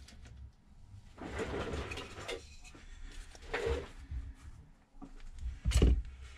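Hand handling noises at a repair bench: a few brief rustles and scrapes as tools and a roll of tape are picked up and worked, with a louder thump about six seconds in.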